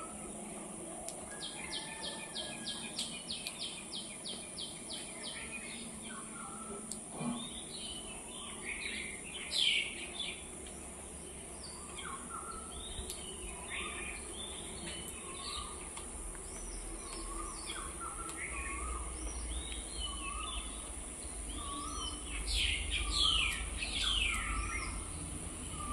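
Several wild birds chirping and calling at once, with many short overlapping calls and a rapid run of evenly spaced notes in the first few seconds. A steady high hiss sits under the calls, and a low rumble comes in during the second half.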